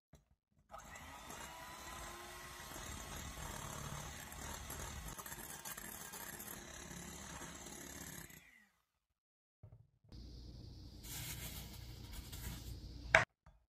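Electric hand mixer running, its wire beaters whipping egg whites to foam in a glass bowl. It stops for a moment about two thirds of the way through and starts again, and a single sharp click comes near the end.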